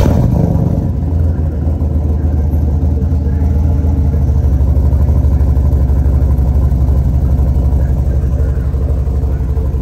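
Cammed Chevrolet Impala SS's 5.3-litre LS4 V8 idling through its newly done exhaust, heard at the tailpipes: a loud, deep, steady idle with a fast, even pulse.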